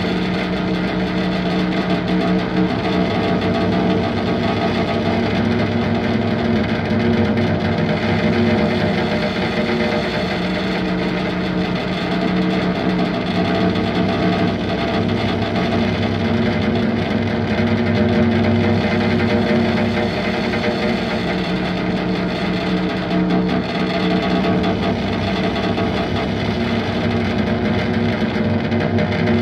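Music: a dense, steady drone of sustained, layered tones with slowly shifting low notes.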